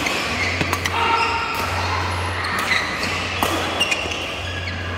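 Badminton rally: several sharp racket hits on the shuttlecock, and sports shoes squeaking briefly on the court mat, over a steady low hum.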